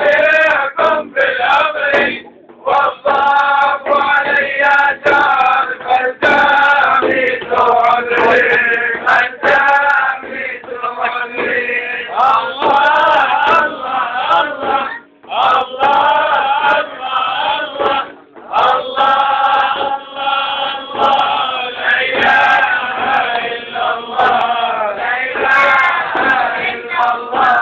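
Group of men singing a Sufi religious chant in unison, with hand-beaten frame drums struck along with it. The sound is clipped and thin, as from a low-quality recording.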